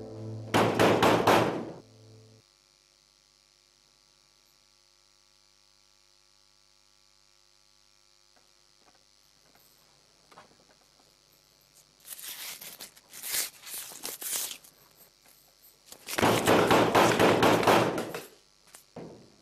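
Music stops about two seconds in. After a quiet stretch, a cloth shawl rustles and swishes in two long noisy bursts, a few seconds apart, the second the louder.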